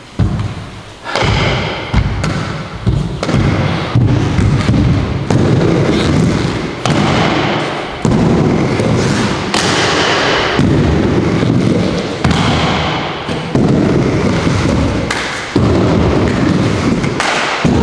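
Inline skate wheels rolling hard on a plywood skate ramp, a loud rumble broken by thuds of landings and drop-ins. The rumble stops and starts abruptly every second or two.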